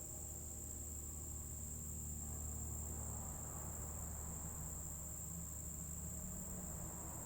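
Crickets chirring in a steady, unbroken high-pitched drone, with a faint low rumble underneath.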